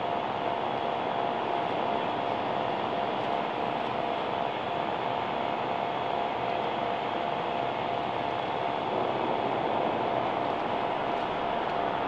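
A steady, unbroken hum and hiss, with a few held tones in the middle range and no sudden sounds.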